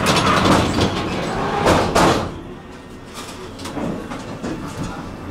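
Tram's sliding passenger doors closing at a stop, with a loud thud as they shut about two seconds in.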